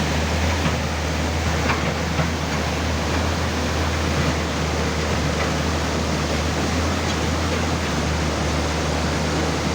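Excavator's diesel engine running at a steady pitch over the even rushing noise of river water, with a few faint clicks.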